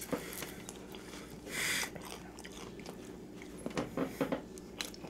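People chewing and biting into fried chicken close to the microphone, with scattered short crunches of the breading.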